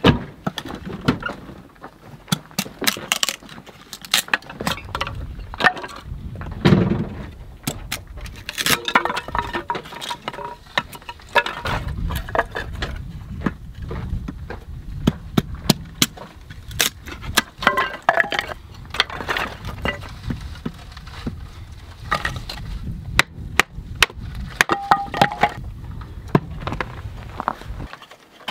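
Kindling being split with a large knife: repeated sharp knocks and cracks as the blade strikes and splits thin sticks of softwood, at an uneven pace, with small clatters of wood pieces.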